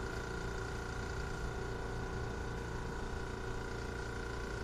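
Air compressor running steadily: a low motor hum with a constant whine over it.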